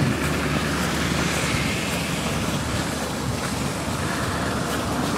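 Steady rush of road traffic, with wind buffeting the microphone in a fluttering low rumble.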